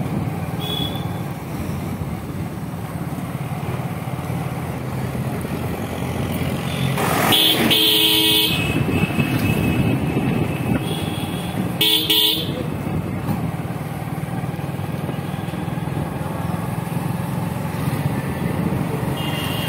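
Motorcycle engine running steadily while riding along a road. A vehicle horn sounds twice: a long honk about seven seconds in and a shorter one about twelve seconds in.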